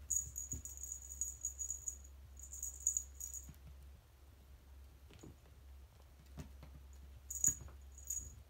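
Jingling of a cat wand toy in quick high tinkly bursts as a kitten bats and bites at it, busiest in the first three seconds and again near the end. Soft taps of the kitten's paws on the wooden floor fall in between.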